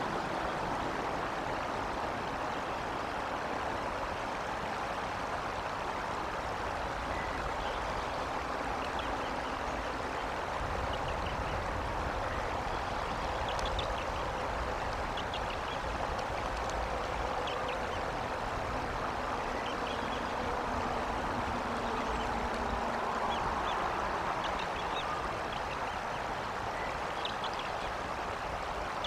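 Steady outdoor background hiss picked up by a nest-camera microphone. Faint, short high-pitched peeps come in small clusters from about a third of the way in, fitting newly hatched chicks calling in the nest.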